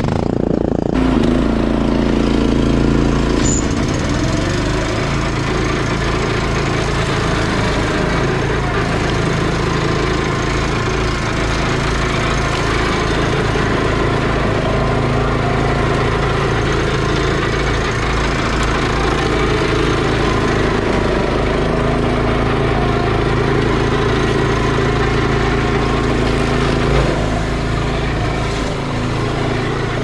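Gravely Pro-QXT walk-behind tractor running steadily under load, its front brush-cutting deck chopping through tall weeds and brush. The engine eases a little near the end.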